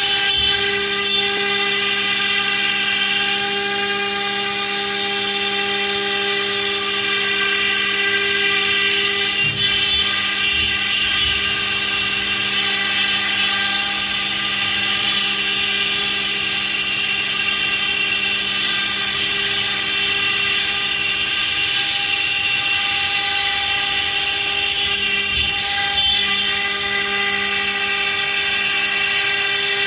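CNC router cutting furniture parts: the spindle runs with a steady high whine made of many constant tones, the level barely changing throughout.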